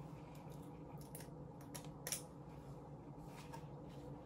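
Faint, scattered clicks and small handling noises, the sharpest about two seconds in, over a low steady hum.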